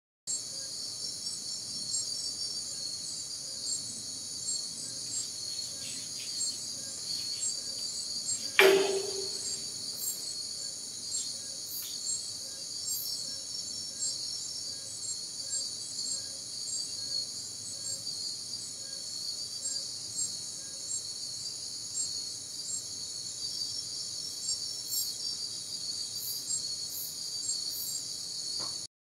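Crickets and other night insects chirping steadily in a dense high-pitched chorus. A single sharp knock cuts in about a third of the way through.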